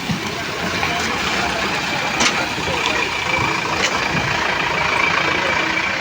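Road vehicles' engines idling at a railway level crossing, with a steady high tone running through and a few sharp clicks.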